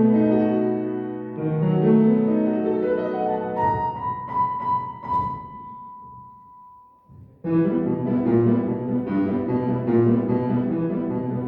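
Violin and piano playing classical music. Piano chords lead in, a held high note fades to a brief near-pause around seven seconds, and then the violin and piano set off together in a fast, unbroken run of notes.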